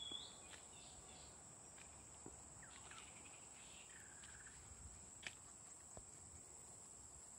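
Faint, steady high-pitched drone of insects, cricket-like, with a couple of short bird chirps and light footstep ticks on dry ground, and one sharper click a little past five seconds in.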